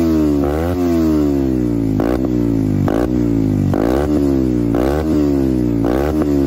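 Beta RR 125 LC motorcycle engine with an aftermarket sport exhaust, revved in repeated throttle blips. The pitch jumps up and then falls back, about once a second.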